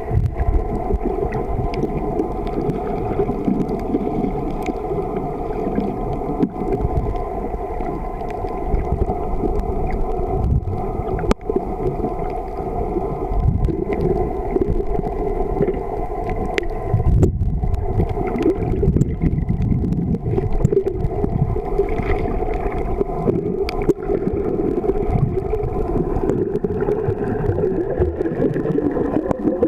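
Underwater sound picked up by a submerged camera: a continuous low, muffled rumble with a steady drone of several held tones, and a few sharp clicks.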